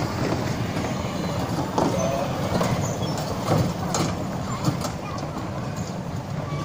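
Small electric kiddie bumper cars driving over rough concrete: a steady low rumble of hard wheels and drive motors, with a few sharp knocks along the way.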